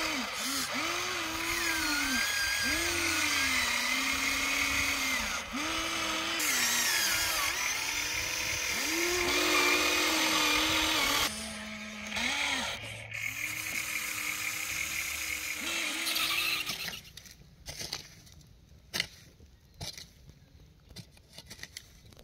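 Small electric motors and gearboxes of a Huina radio-controlled model excavator whining as the boom and bucket move, the pitch dipping and rising with each movement. The motors stop about 17 seconds in, leaving only faint clicks and rustles.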